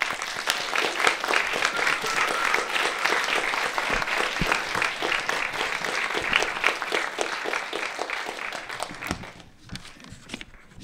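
A small audience applauding, starting suddenly and dying away about nine seconds in.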